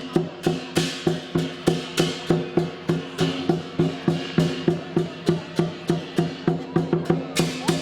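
Lion dance percussion: drum, gong and cymbals beating a steady, driving rhythm of about three to four strokes a second, the gong's ringing tone sustained under the beats.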